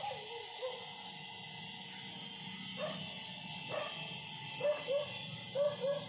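A small dog yipping in short, high barks: a couple near the start, single yips about three and four seconds in, then a quick run of them toward the end.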